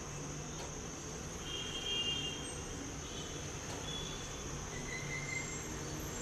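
Background room noise with a steady high-pitched insect drone and a low steady hum, with a few faint short tones.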